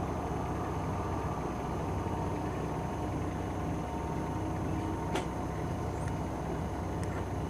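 Service truck's engine running steadily, a low even hum, with a faint click about five seconds in.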